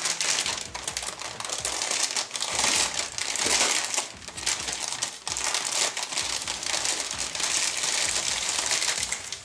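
Clear plastic bag crinkling continuously as a sprue of grey injection-moulded model kit parts is handled and slid out of it.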